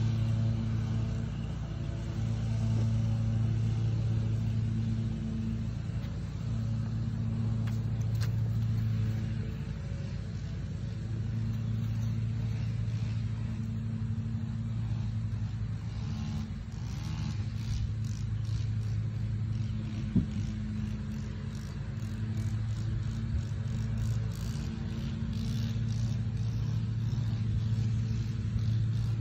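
An engine running steadily at idle, a low hum that swells and fades every couple of seconds.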